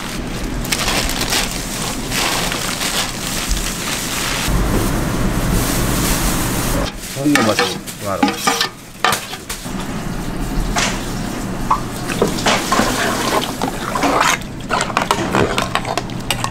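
Kitchen cooking sounds: food sizzling in hot oil with a steady hiss, mixed with stirring and knocks of utensils. The hiss drops away for a couple of seconds about seven seconds in, then comes back.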